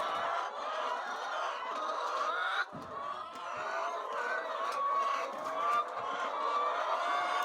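A flock of chickens clucking and calling, many birds overlapping continuously.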